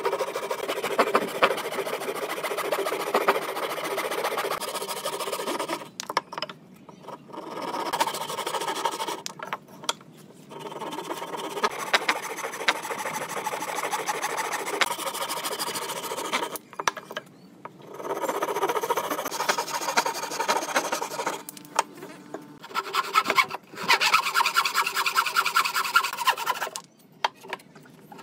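Hand saws cutting through a wooden block: a rasping stroke-by-stroke sawing sound in several stretches of a few seconds, broken by short pauses.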